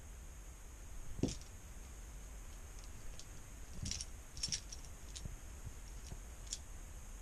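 A cat playing with a dangling fabric strap: light, scattered clicks and knocks of the strap and its buckle being batted and dragged against the tripod and rug, with one louder knock about a second in and a quick cluster of clicks around the middle.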